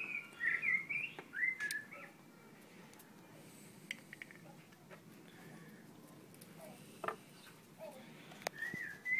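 A songbird singing: a phrase of quick up-and-down chirping notes lasting about two seconds at the start, and another phrase beginning near the end. A few faint clicks fall in between.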